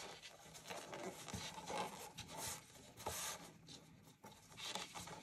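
Faint rustling of t-shirt yarn rubbing against itself and a large crochet hook as loops are drawn through for slip stitches along a basket's top edge. It comes as a few soft, brief scuffs.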